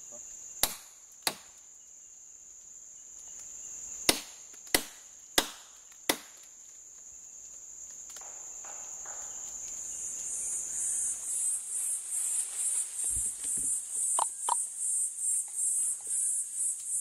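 Six sharp machete chops into wood within the first six seconds, over a steady high buzz of forest insects. From about ten seconds in, the insects switch to a high rhythmic pulsing, about two to three pulses a second.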